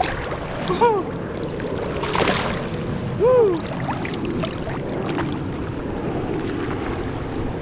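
Shallow seawater sloshing and lapping around a wader's legs, with wind on the microphone. A short splash-like burst comes about two seconds in, and two brief rising-and-falling cries come at about one and three seconds in.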